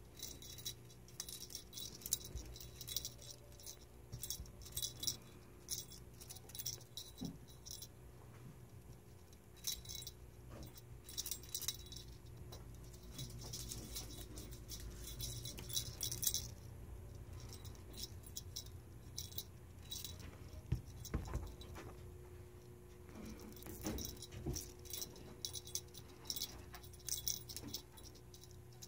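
A cat's feather wand toy being shaken, jingling and rattling in quick high-pitched clusters with pauses between, over a steady low hum.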